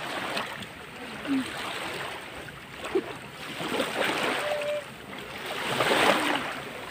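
Small waves washing in over the shallow beach, a steady rush that swells about six seconds in as a wave runs up around the people sitting in the water. A few brief voice sounds.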